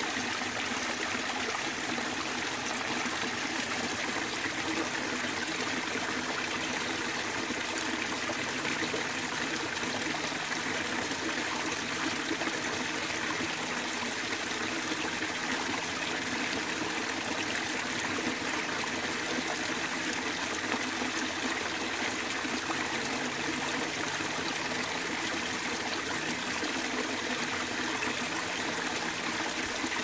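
A small trickling waterfall splashing steadily into a shallow stream pool.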